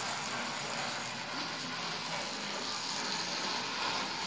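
Tri-ang OO-gauge Stephenson's Rocket model locomotive running around the track: the steady whirr of its small electric motor and its wheels running on the rails.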